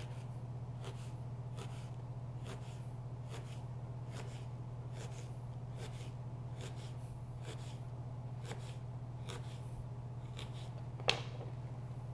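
Chef's knife cutting apple into thin sticks on a plastic cutting board: short crisp cuts a little more than one a second, with one louder knock near the end. A steady low hum runs underneath.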